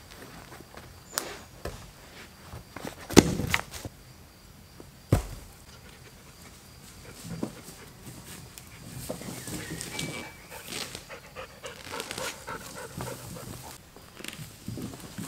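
Dog panting, with a few sharp knocks, the loudest about three seconds in and another about five seconds in.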